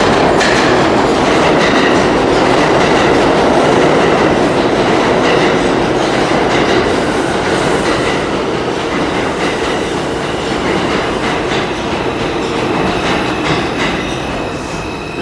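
New York City Subway R142 train running into the station along the platform. The noise is loud at first and gradually eases as the train slows.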